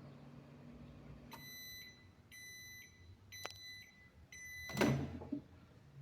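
Microwave oven running with a low hum that stops about a second in. Four beeps follow, about a second apart, signalling the end of the cycle. A loud clunk comes near the end.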